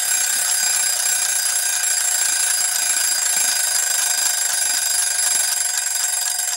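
Mechanical alarm clock bell ringing continuously, its hammer rattling rapidly against the bell at a steady level.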